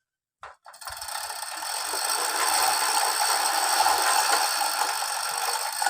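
A well-drilling machine running steadily: a dense mechanical rushing noise with a rattle, which starts about a second in and builds up over the next second or two.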